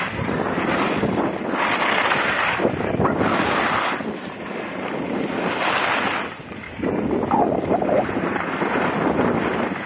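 Skis hissing and scraping over packed snow in a run of turns, swelling every second or two, with wind rushing over the microphone.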